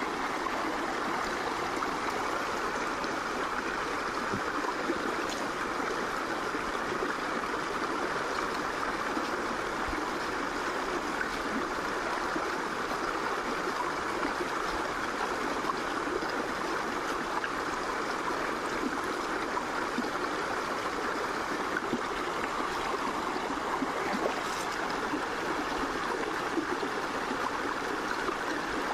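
Steady rushing of a shallow, rocky stream as the water runs over a small cascade between the rocks.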